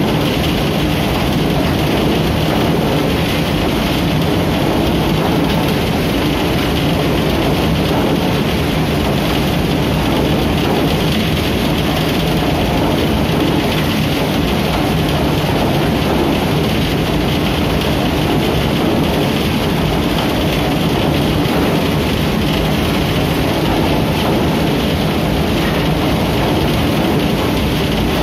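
Shaftless thresher running steadily, its drum churning straw and stalks: a loud, unbroken mechanical din.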